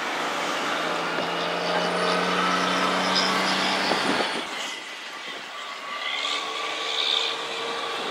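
Vehicle engine and road noise: a steady engine hum that stops about four seconds in, leaving a lighter, noisier background.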